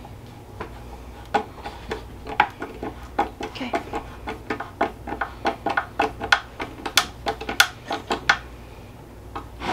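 Hand screwdriver turning screws out of a wooden hive box: a run of short clicks and creaks, a few a second and unevenly spaced, as the driver is twisted and reset in the screw heads.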